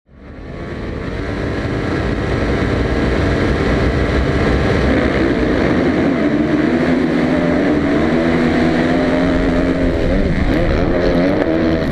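Motocross bikes at full throttle, with the rider's own Suzuki four-stroke engine revving hard and shifting up among other bikes' engines; the pitch slides up and drops back several times. The sound fades in over the first second or two.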